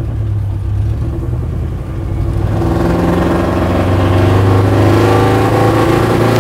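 Land Rover 101 Forward Control's 3.5-litre Rover V8 running as the ex-army truck drives along a road; its note fills out and grows louder from about two and a half seconds in as it comes past.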